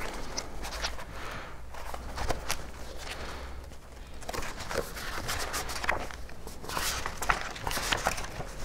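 Irregular rustling and light knocks of a printed book being handled and its pages leafed through, with a few louder rustling spells in the second half.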